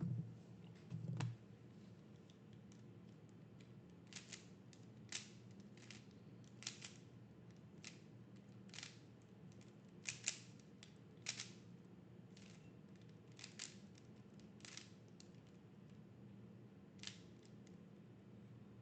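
Faint, irregular clicks of a Rubik's Cube's layers being turned, about one a second, over a faint steady hum.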